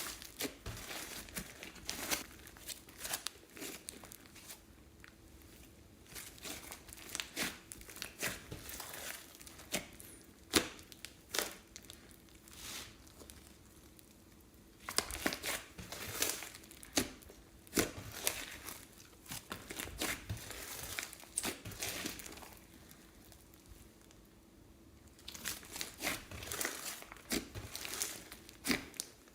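Slime being handled and squeezed together with crinkly plastic, making irregular crinkling and crackling clicks in clusters with short pauses.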